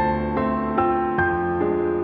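Background music: soft, gentle piano or electric piano with a note change about every half second.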